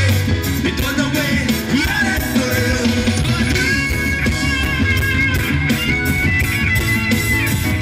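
Live reggae band playing, with bass guitar, drums and guitars, and a voice singing over it.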